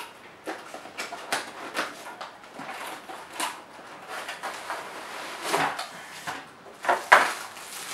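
Cardboard packaging being handled: a white inner box slid out of its cardboard sleeve and opened, with scraping and rustling and a run of small taps and knocks, the sharpest knock near the end.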